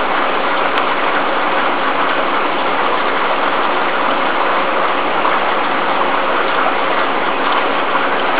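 Steady, even rushing noise with a faint low hum from aquarium equipment running: water flow and an air pump feeding the rearing tank.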